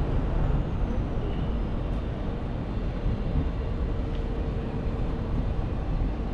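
Steady low rumble of street traffic and wind noise, with a faint steady tone running under it.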